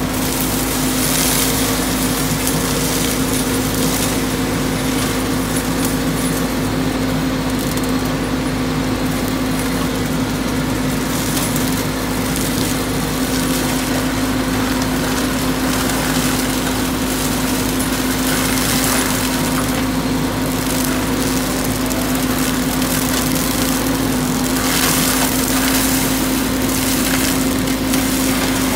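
Excavator-mounted hydraulic mulcher head running on a Volvo 150 wheeled excavator, its rotor shredding brush and small saplings over a steady machine hum. The shredding gets louder several times as the head bites into denser growth.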